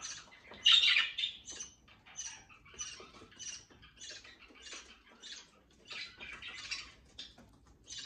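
A flock of English budgerigars chattering: a steady run of short squawks and chirps, several a second, loudest about a second in.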